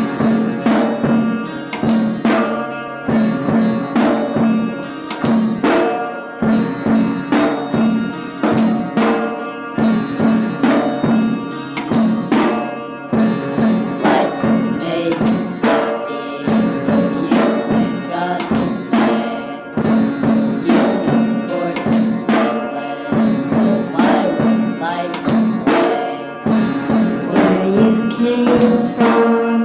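Instrumental music with a steady percussive beat of hand-drum-like strokes over a held low note.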